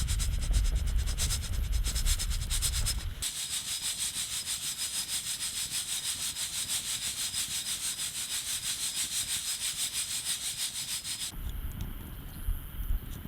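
Coffee beans shaken in a Uniflame mesh bonfire roaster over a campfire, giving a rattling swish in a quick, even rhythm. About eleven seconds in the shaking stops. A low rumble is heard at the start and again after the shaking stops.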